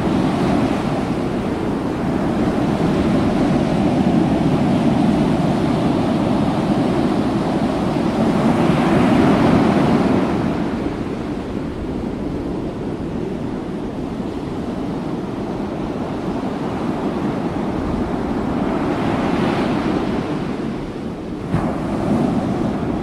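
Steady rush of wind on the microphone over the open sea, swelling twice, with a single brief knock near the end.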